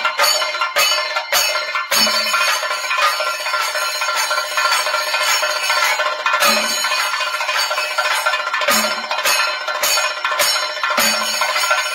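A Thayambaka ensemble of chenda drums plays a fast, unbroken roll of stick strokes over the ringing of ilathalam brass hand cymbals. Heavy bass strokes cut through every few seconds.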